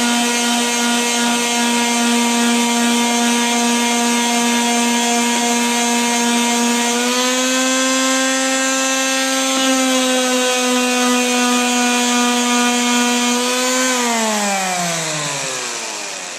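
Electric quarter-sheet pad sander with 100-grit paper running with a steady motor hum while sanding the wooden corner joints. About seven seconds in its pitch rises slightly as it comes off the wood and runs unloaded. Near the end it is switched off and its pitch falls as it winds down to a stop.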